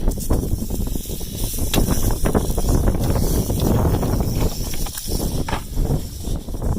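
A rattlesnake rattling in a steady, continuous high buzz, the sign of a defensive snake. Rustling and scattered knocks run underneath it.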